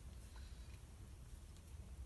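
Near silence: faint room tone with a low hum and a few tiny ticks.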